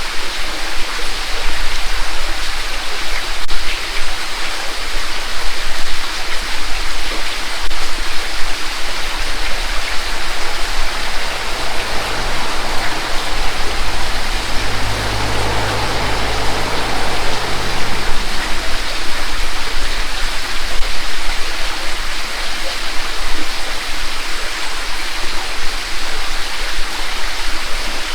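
Mountain creek running over a rocky bed and small waterfalls: a steady, loud rush of babbling, splashing water. A low hum swells and fades in the middle.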